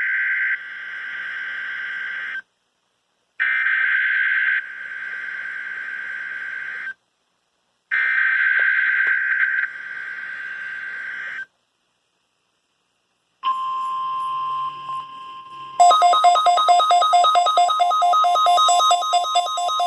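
NOAA Weather Radio SAME digital header for a Required Weekly Test: three screeching data bursts, each about three and a half seconds long, separated by one-second silences. A steady tone near 1 kHz then starts, and about two seconds later a loud, rapidly pulsing multi-tone electronic alarm joins it.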